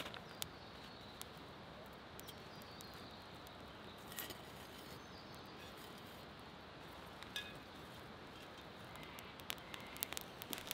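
Faint steady outdoor background hiss with scattered light clicks and taps, which come thicker near the end.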